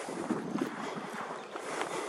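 A person walking on a paved street while holding the camera: irregular footsteps and rustling handling noise, with no clear steady rhythm.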